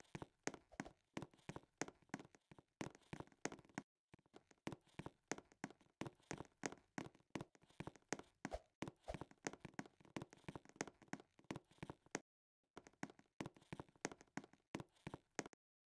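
Faint, irregular tapping and clicking, several taps a second, with short drops into dead silence.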